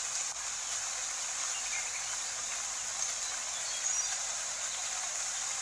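Steady rain sound, an even hiss of rainfall with no low end.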